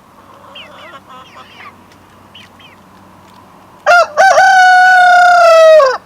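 Faint, short falling peeps from young chicks, then about four seconds in a rooster crows once, loud: two short notes and a long held note that drops at the end.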